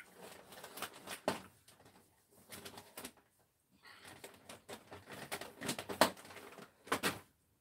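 A woman's stifled, breathy laughter coming in short bursts, soft and cooing rather than spoken.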